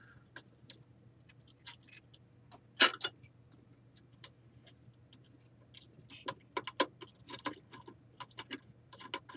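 Light scattered clicks and ticks of wire leads being worked into a screw terminal strip and tightened down, with one sharper click about three seconds in and a busier run of clicks in the last few seconds. A faint low hum runs underneath.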